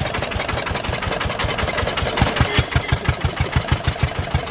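Small engine driving a sugarcane juice crusher, chugging with a steady beat of about five thumps a second. The beat grows more distinct from about halfway through, as the cane, lemon and mint are pressed for juice.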